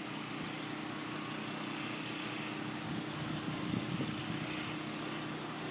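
Hurricane wind blowing steadily over a constant low mechanical hum, with a few gusty rumbles about three to four seconds in.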